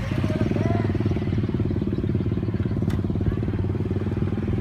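An engine running steadily with a fast, even chugging beat; a single sharp click about three seconds in.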